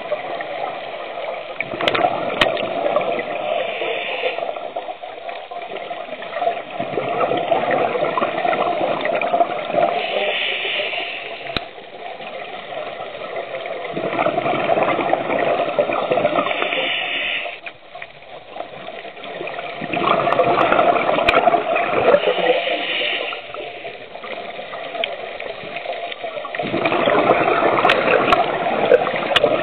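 Scuba diver breathing underwater: five swells of bubbling and hiss from the regulator, about six seconds apart, with quieter stretches between breaths.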